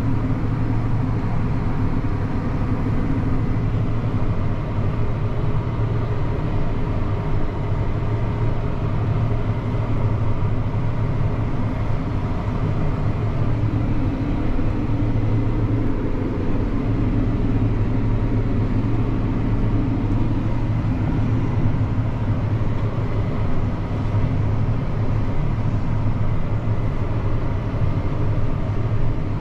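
Tractor engine running steadily under load, heard from inside the cab as a constant low drone.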